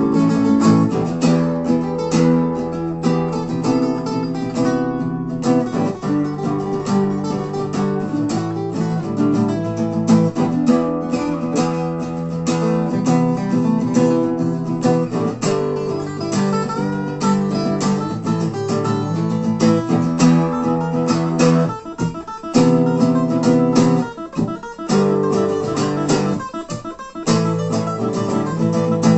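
Two acoustic guitars playing an instrumental break in an acoustic rock song, strummed chords under picked lead lines, with a few short stops about three quarters of the way through.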